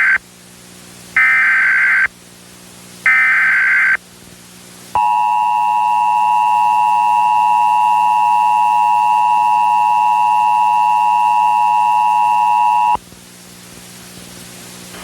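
Emergency Alert System SAME header: the end of one data burst, then two more one-second bursts a second apart, each encoding the alert's coded data. The EAS two-tone attention signal follows at about five seconds, held steady for about eight seconds before cutting off sharply, with a faint steady hum underneath.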